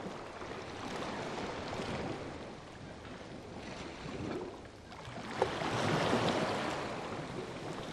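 Waves washing in a steady rush of water noise that swells and ebbs, loudest about six seconds in, with one short click just before that peak.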